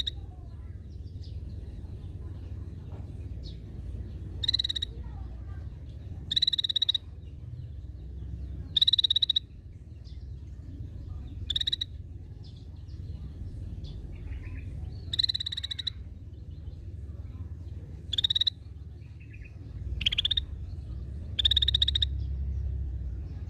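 Cucak bersisik bulbul giving short, harsh, buzzy calls, repeated about every two to three seconds, over a steady low hum.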